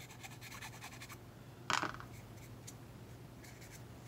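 A small hobby file scraping the plastic fuselage of a helicopter model kit in short strokes, with one louder scrape a little under two seconds in.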